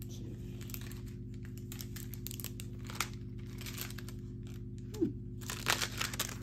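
Jewelry on cardboard display cards and plastic packaging being handled: light rustling and crinkling with scattered clicks, one sharp click about three seconds in and a louder patch of crackling near the end. A steady low electrical hum runs underneath.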